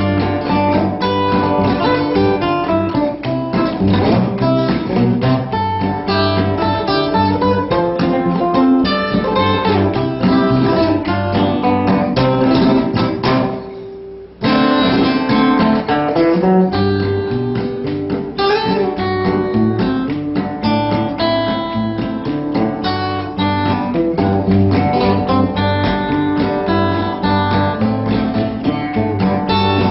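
Background music on acoustic guitar, plucked and strummed. It fades down about 14 seconds in, and a new guitar piece starts abruptly half a second later.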